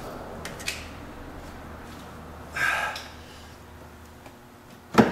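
Hand work on turbo plumbing in a diesel truck's engine bay: a few light clicks, a man's heavy exhale about two and a half seconds in, and a sharp loud knock near the end.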